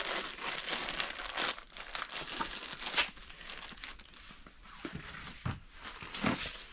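Crinkling and rustling of a plastic parts bag full of new bolts being opened and handled, with small clicks and clinks among the rustle.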